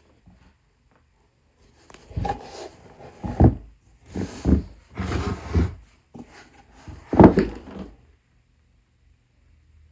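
A leather boot being handled: scuffing and rubbing, with two louder knocks, one about three and a half seconds in and one about seven seconds in.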